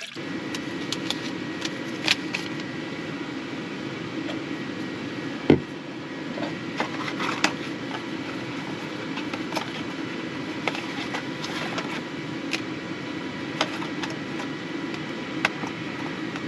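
Portable gas camp stove burner running steadily under a pot of water for tea, a low rushing flame noise, with scattered light clicks and one sharper knock about five and a half seconds in.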